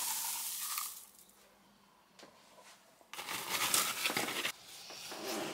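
Crinkling, rustling handling noise, in two stretches: one through the first second, then again from about three seconds in.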